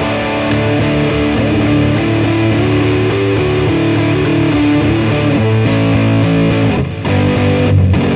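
Electric guitar overdriven through an OCD-style germanium overdrive pedal on its high-pass setting, with distortion and tone at noon, playing sustained chords and notes into an amp with a touch of delay. The playing dips briefly a little before the end, then carries on.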